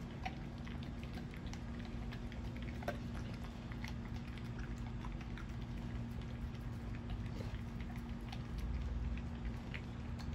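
A large dog chewing and crunching scattered pieces of dry food picked up off paving stones: irregular small crunches and clicks, over a steady low hum.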